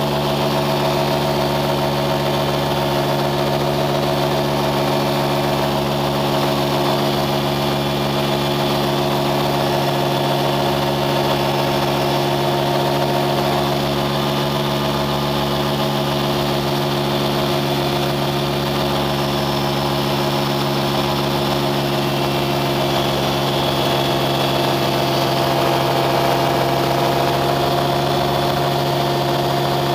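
An engine running at a constant speed, its pitch and loudness holding steady with no revving or change.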